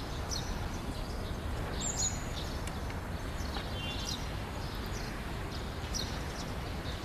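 Outdoor ambience: a steady background hiss with a few short bird chirps scattered through it.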